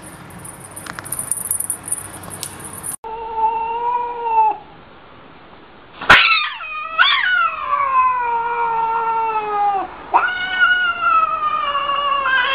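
Domestic cat yowling defensively in a series of long, drawn-out wails, each sliding down in pitch. The loudest begins about six seconds in with a sharp knock, and the first few seconds hold only faint noise with a few clicks.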